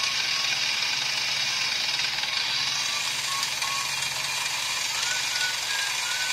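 Bench milling machine running and drilling into a pistol slide's steel front sight with a small end mill. The cut gives a steady hiss over the motor hum, with brief high squeaks of the cutter now and then.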